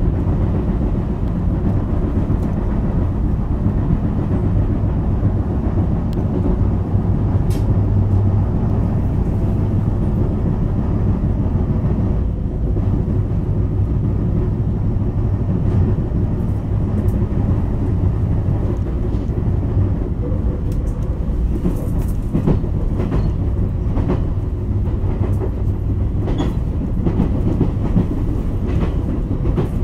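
A JR West 223 series electric train running at speed, heard from inside its cab motor car: a steady dense rumble of wheels on rail and running gear. Sharp clicks come through now and then, more often in the second half. The set is running with a wheel flat, which the recordist calls an abnormal flat sound.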